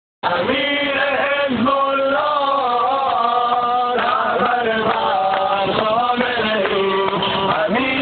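Men's voices chanting a Shia mourning lament (noha) for sineh-zani chest-beating, a slow melodic chant that cuts in abruptly just after the start.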